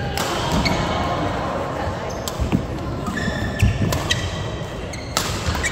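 Badminton rally: a few sharp racket strikes on the shuttlecock, with shoes squeaking briefly on the court mat.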